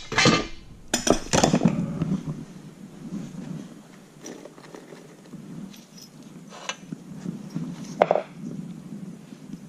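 Metal hand tools clinking and clanking as they are handled and set down, with a cluster of knocks in the first couple of seconds and a louder clank about eight seconds in.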